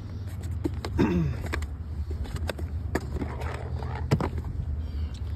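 Stacked clear plastic parts organizer cases being handled, with irregular clicks and knocks of plastic lids and latches, over a steady low hum.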